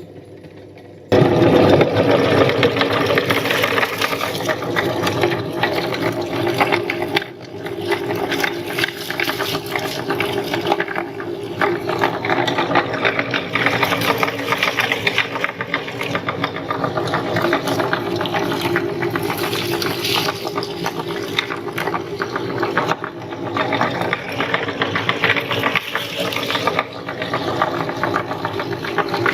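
Electric meat grinder switched on about a second in and running steadily, its motor humming under a dense crackle as it grinds popcorn.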